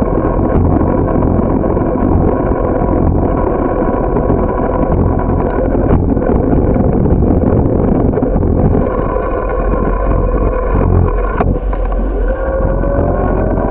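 Ride noise from a camera mounted on a moving bike: steady road rumble and wind on the microphone, with a steady drone underneath. Near the end a tone rises in pitch.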